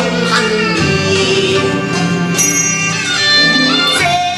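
Cantonese opera singing: a performer sings a slow aria line with sliding, wavering pitches over the traditional opera ensemble.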